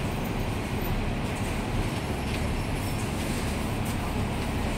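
Steady low rumble inside a Hong Kong double-decker tram, with street traffic around it.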